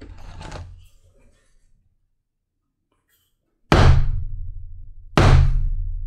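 A mallet striking a leather hole punch twice, about a second and a half apart, driving it through the belt liner leather to make rivet holes. Each blow is a hard knock that dies away over about a second.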